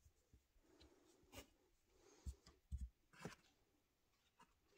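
Faint handling sounds of chicken eggs: soft rubbing on the shells and light taps as eggs are set into a cardboard egg carton, with two soft thumps a little past halfway and a click just after.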